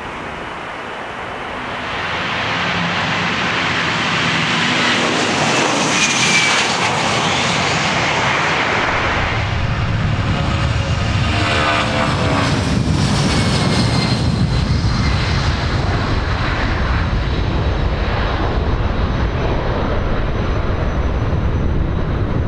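A Boeing 757 freighter's twin jet engines at takeoff thrust. The roar builds about two seconds in as the takeoff roll begins. A whine falls in pitch as the jet passes close by, and a steady roar carries on as it climbs away.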